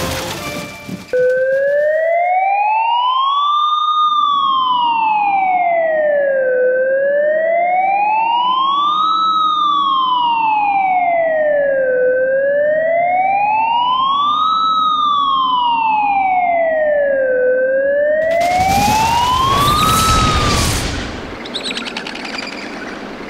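Police siren wailing slowly, its pitch rising and falling about every five seconds, over a low steady rumble. Near the end the siren fades out under a loud rushing noise.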